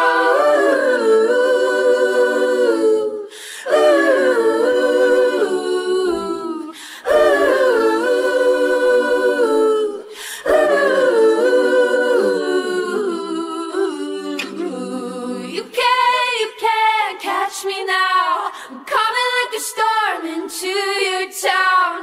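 Isolated a cappella vocal track of a pop song at 142 bpm: wordless sung lines with no instruments, in long held phrases at first, then shorter, clipped notes from about 15 seconds in.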